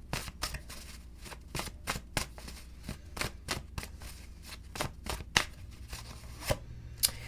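A deck of tarot cards being shuffled by hand: a run of crisp, irregular card clicks and flicks, several a second.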